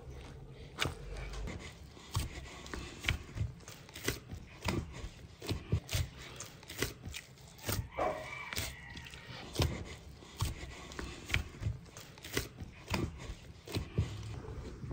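Irregular sharp taps and knocks from hand food preparation, one or two a second, with a brief squeak about eight seconds in.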